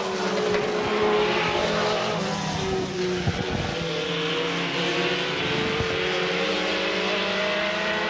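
Several mini stock race cars' engines running at speed around a short oval track, their overlapping tones drifting up and down in pitch.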